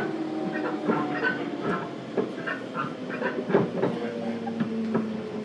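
Running sound inside a JR Kyushu 415 series 1500 subseries electric motor car: a whine from the traction motors and gears over the rumble of the wheels on the rail, with irregular clacks from rail joints and short squeaks.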